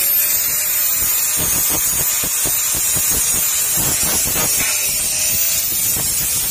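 Angle grinder with an abrasive cut-off disc cutting through square steel tubing. The motor's whine settles just after coming up to speed, over a steady harsh hiss from the disc biting into the metal.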